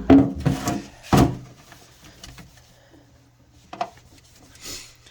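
Plastic fridge drawer or container handled and set down: three loud knocks and clatters in the first second and a half, then a few faint clicks.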